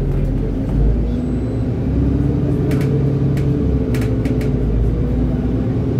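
Inside a city bus while it drives: a steady engine drone that slowly shifts in pitch, over road rumble, with a few light clicks or rattles in the middle.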